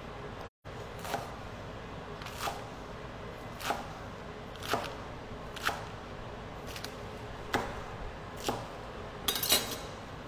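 Chef's knife chopping lettuce on a plastic cutting board: single chops at about one per second, with a quick cluster of sharper knocks near the end, over a steady background hiss.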